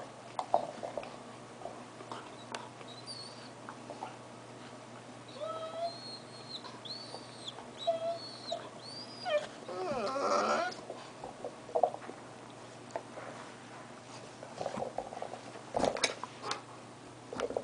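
Black Labrador puppy whining in short, high, arching whimpers, frustrated at its Kong toy, with one louder cry about two-thirds of the way through. A few sharp knocks sound near the end.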